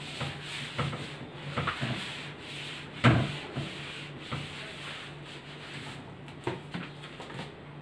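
Whiteboard writing being wiped off, a series of rubbing strokes across the board surface, with a single knock against the board about three seconds in.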